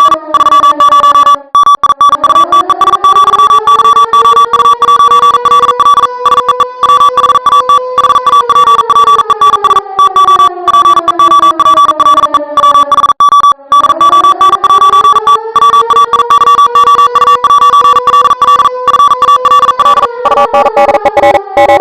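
Loud electronic emergency alarm in the style of a mock EAS alert. A steady high tone is held under a slow siren wail that rises for several seconds, falls, cuts out briefly, and rises again. The sound stutters with many brief dropouts.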